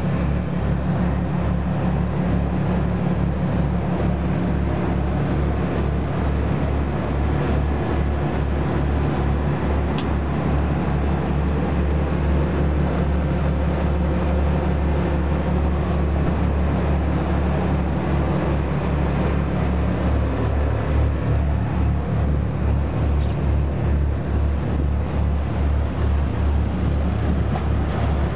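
Charter catamaran's engines running steadily under way, a low drone with a regular pulsing beat, over the rush of the hull's wash.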